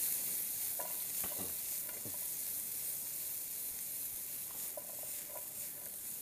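Pre-boiled carrots, broccoli and celery sizzling in butter in a frying pan as they are tossed, a steady hiss with a few faint knocks of the vegetables and pan moving.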